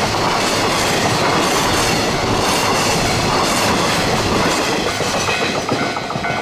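Freight train's container wagons rolling past at speed: a steady loud rumble with a regular clatter of wheels over the rail joints about once a second. Near the end, as the train noise eases, the repeating electronic tones of the level-crossing warning bell come through.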